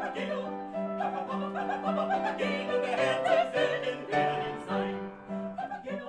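Operatic singing with vibrato, accompanied by a Grotrian-Steinweg upright piano playing steady chords.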